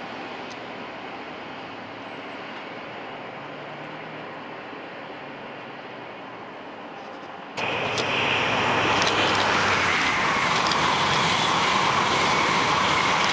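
Faint, steady rumble of a Class 66 diesel locomotive approaching from a distance with a freight train. About seven and a half seconds in the sound cuts abruptly to the loud rush of an express passenger train passing at speed close by, with sharp wheel clicks over the rails.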